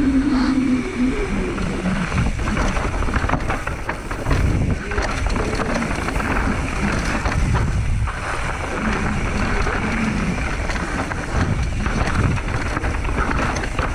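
Mountain bike riding down a rough trail: tyres rolling over rock and dirt with constant clatter and knocks from the bike, and wind buffeting the microphone.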